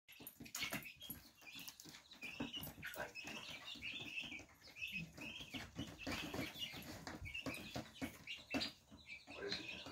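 Young chicks peeping over and over in short, high chirps, mixed with many light taps and clicks on the plywood floor.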